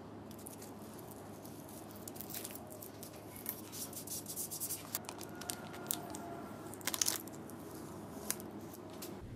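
Gloved hands pressing a vinyl decal onto a steel engine-hoist boom and peeling off its transfer tape: faint, irregular rustling, crinkling and short tearing sounds.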